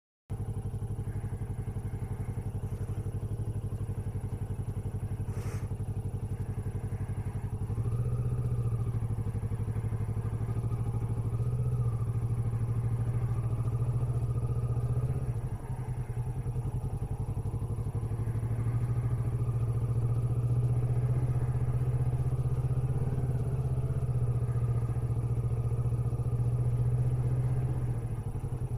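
Kawasaki Vulcan S's parallel-twin engine running steadily at walking pace, with a deep low note. The note strengthens a little about eight seconds in and drops briefly about halfway through.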